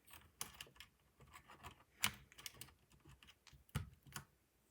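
Plastic keycaps being pressed onto a mechanical keyboard's brown switch stems: a faint, irregular series of clicks and taps.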